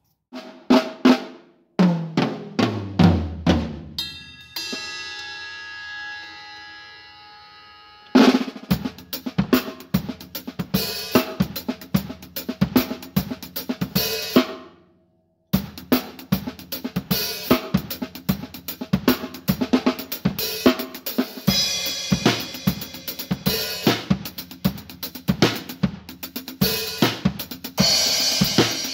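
Acoustic drum kit played: a tom fill falling in pitch, then a cymbal left ringing for a few seconds, then a fast groove on snare, bass drum and cymbals that breaks off briefly about halfway and starts again.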